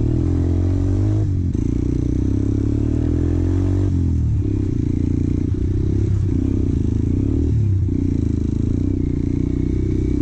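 Motorcycle engine running under way, its note dipping and picking up again several times as the throttle is worked.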